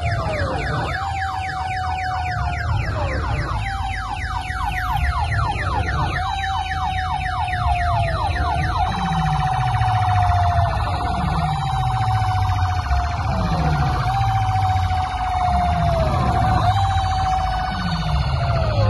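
Siren-style electronic DJ track blasting from a large street sound system. A held high wailing tone dips every couple of seconds over repeated falling bass sweeps. A fast rattling layer stops about halfway through.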